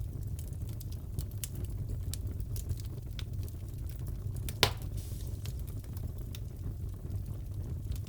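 Wood fire crackling in a fireplace: scattered small pops and snaps over a steady low rumble, with one louder pop about halfway through.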